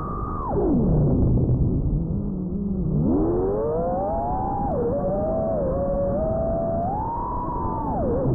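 FPV drone's brushless motors whining, the pitch following the throttle: it falls steeply about half a second in, stays low for a couple of seconds, then climbs back up and wavers high before dipping again near the end.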